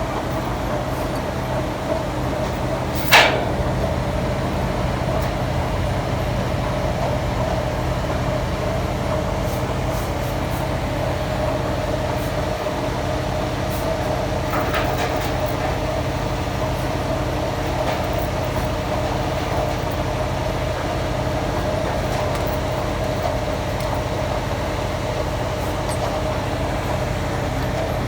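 Heavy construction machinery's diesel engine running steadily with a constant hum. One sharp bang about three seconds in.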